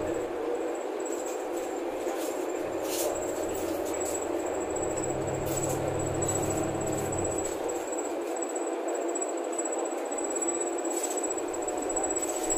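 Cabin noise of a Bonluck JXK6120L-NGV-01 natural-gas city bus under way: a steady engine and road drone with light rattles of the interior fittings. A deeper engine hum comes in about three seconds in and drops away around seven seconds, and a thin high whine runs under it all.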